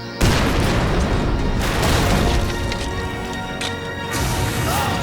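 Dramatic score music with a sudden loud crash or boom about a quarter of a second in, followed by further crashing surges about a second and a half and four seconds in.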